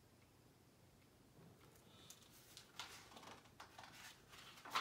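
Near silence, then from about halfway faint rustling and soft taps as the paper pages of a hardcover picture book are handled and turned.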